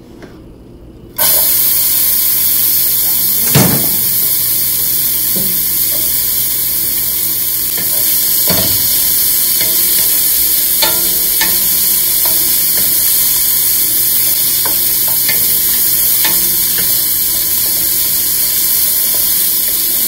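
Chopped onion hitting hot avocado oil in a stainless steel frying pan: a sudden sizzle starts about a second in and keeps up steadily while the onion fries. A wooden spatula knocks and scrapes against the pan a few times as it is stirred, the sharpest knock a few seconds in.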